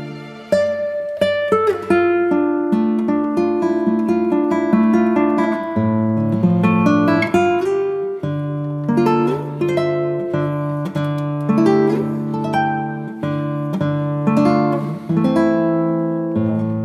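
Background music: a guitar playing a steady run of plucked notes and chords.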